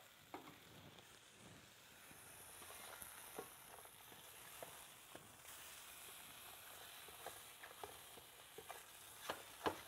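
Sujuk sausages frying in a pan with no added oil: a faint, steady sizzle with scattered small pops and two sharper pops near the end, as their fat renders out.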